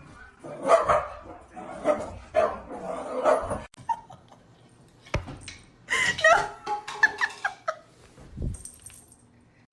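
A dog barking in a string of short barks over the first few seconds, then a run of higher yips about six to eight seconds in.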